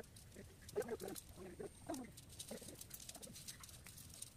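Welded wire mesh clinking and rattling in light, sharp ticks as it is unrolled and pressed flat on the ground. Short animal calls sound faintly in the background, about one and two seconds in.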